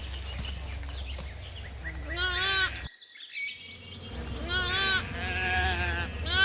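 Sheep bleating: about three quavering bleats, the first about two seconds in, over a steady low rumble of background noise.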